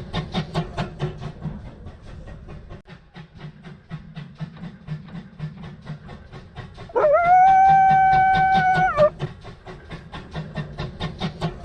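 Train running with a rapid, even beat of about five clicks a second over a low rumble. About seven seconds in, its whistle blows once for about two seconds: it rises at the start and then holds one steady note.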